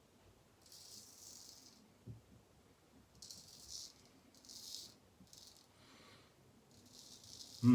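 Several short strokes of a razor scraping through shaving lather and stubble, each about half a second to a second long with pauses between. A single thump at the very end.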